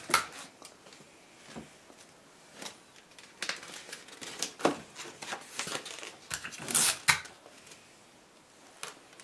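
Pleated paper fan being handled and spread open: folded paper rustling and crinkling in a run of short crackles, busiest in the middle and loudest about seven seconds in.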